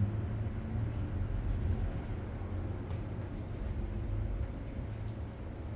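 Steady low rumble with faint background noise.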